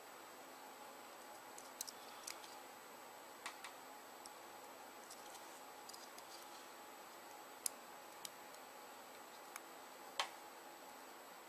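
Scattered small clicks and taps of a BlackBerry 9650's tiny parts and connectors being handled and pressed together, over a steady faint hiss, with two sharper clicks in the later half.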